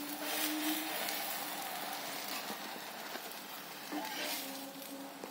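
Vegetable paratha cooking on a hot iron tawa, a steady faint sizzle, with a metal spatula briefly touching it about four seconds in.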